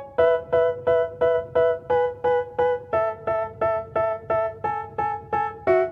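Background music of short repeated chords, about three a second, with the chord changing every few seconds.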